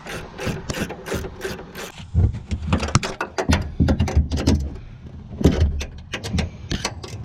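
Hand ratchet clicking in quick, irregular strokes as nuts are snugged down on a new front strut assembly, with a few dull knocks of tool and metal between.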